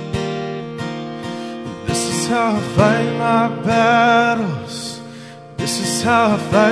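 Acoustic guitar strummed, with a man's voice singing a slow worship chorus over it from about two seconds in, in two phrases with a short break between.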